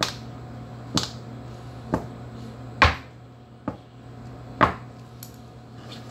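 Glass test tubes knocking against the lab bench as they are handled mouth-down to drain and blot the saline: about six sharp knocks, roughly a second apart.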